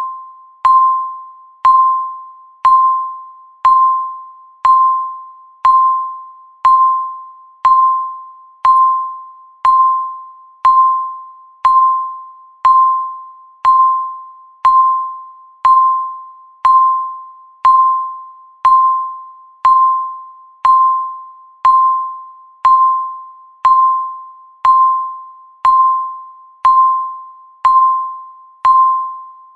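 Countdown timer beeping once each second: a single high tone that starts sharply and fades out, repeating evenly, marking the seconds of a running countdown.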